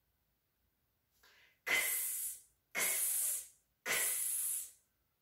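A woman voicing the sound of the letter X, a hissed "ks", three times, each a short hiss of under a second, about a second apart.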